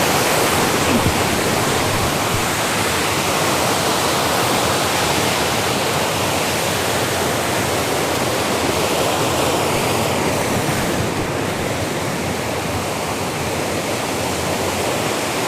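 Waterfall rushing: a strong flow of water falling over rocks, a loud, steady roar.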